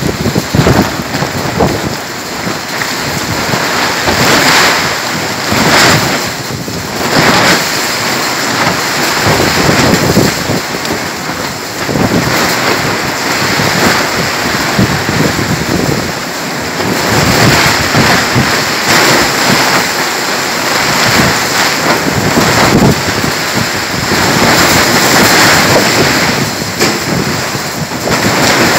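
Heavy rain and strong gusting wind in a thunderstorm, a steady loud rush that swells and eases every few seconds as gusts buffet the microphone.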